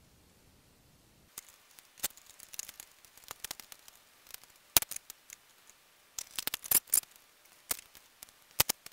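Irregular sharp clicks and knocks of metal parts: a tractor starter motor's armature and end frame being handled and fitted back into the housing. It begins after about a second of quiet, with a quick cluster of clicks about two thirds of the way through.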